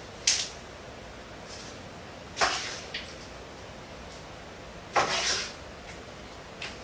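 A few short scrapes and knocks of a utensil against a pan as cooked ground beef is spooned in with the pasta, four of them with pauses between; the one about five seconds in is the longest.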